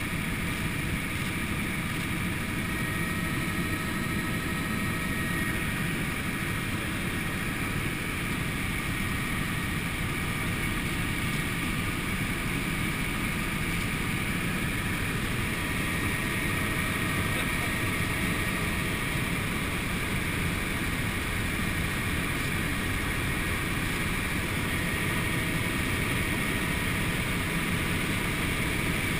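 Helicopter in flight heard from inside the cabin: a steady drone of engine and rotors with a few constant high tones on top.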